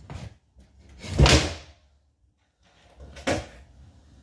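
Skateboard landing and rolling on a wooden mini ramp and concrete garage floor: a short clack at the start, then two loud impacts of board and wheels, about a second in and a little after three seconds in.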